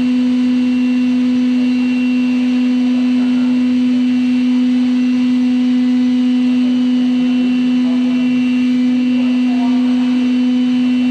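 Lathe machine running with a loud, steady hum at one constant pitch.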